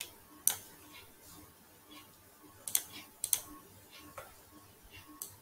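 A few sharp clicks of a computer mouse and keyboard being worked, scattered, with a couple of quick double clicks around the middle.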